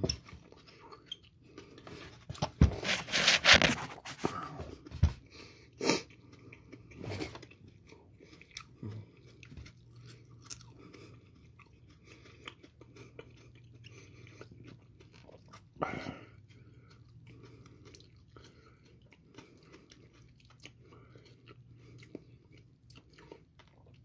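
A man chewing a hot pepper pod stuffed with hot sauce. The mouth noise is loudest for a couple of seconds near the start, then turns faint, with a few sharp clicks.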